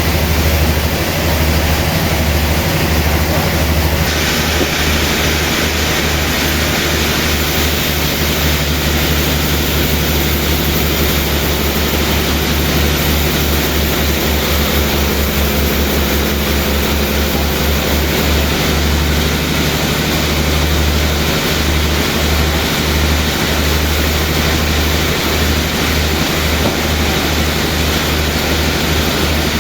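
Sawmill machinery running steadily, with a heavy, fluttering low hum under a constant hiss; the hiss grows louder about four seconds in.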